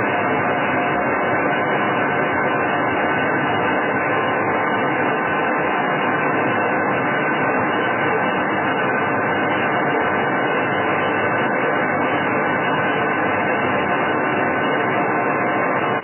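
Estarta 327 centerless grinder running under power, a steady mechanical hum with an even noisy haze and no change in level.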